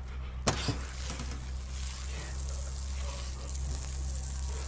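Outdoor shower water running with a steady hiss, with a sharp click about half a second in. A low electrical hum sits underneath.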